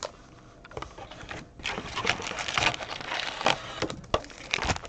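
Trading-card packs and their cardboard box being handled: irregular rustling and scraping as foil packs are lifted out of the box, with a few sharp taps, starting about a second and a half in.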